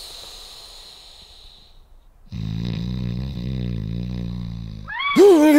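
A man snoring: one long, steady, low snore lasting a couple of seconds, then a loud startled vocal cry with a rising-and-falling pitch near the end.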